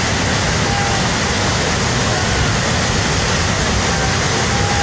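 Flash flood of muddy water rushing down a steep channel: a loud, steady, unbroken rush of water.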